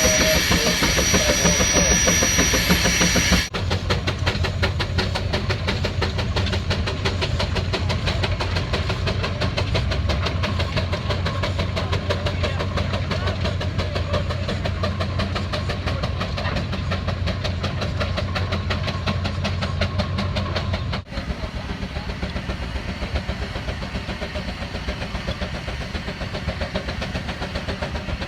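Engines running steadily with a fast, even beat. The sound changes abruptly twice, about three and a half seconds in and about twenty-one seconds in, as one engine gives way to another.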